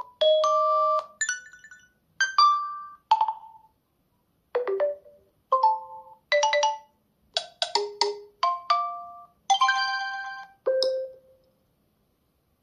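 OnePlus 10 Pro ringtone playing: a melody of short pitched notes, each starting sharply and fading quickly, in small groups separated by brief gaps.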